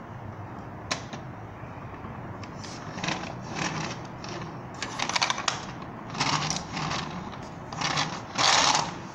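Plastic toy motorbike's wheels whirring and rattling against a wooden tabletop as it is pushed back and forth in short strokes, with a sharp click about a second in. Near the end it is let go and runs off, the longest and loudest whir.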